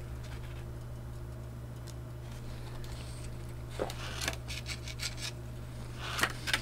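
A steady low electrical hum, then from about halfway in a string of short rustles and clicks as paper is handled and a booklet page is turned.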